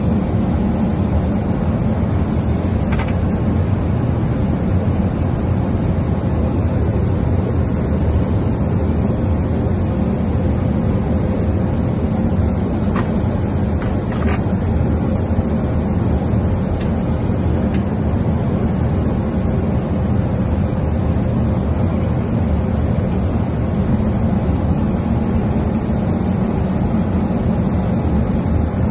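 Steady airflow and engine noise inside a jet airliner's cockpit on approach, with a few faint clicks near the middle.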